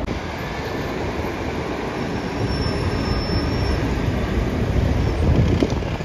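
Israel Railways double-deck passenger train running on the tracks, a steady rumble. A faint, high wheel squeal comes in briefly about halfway through.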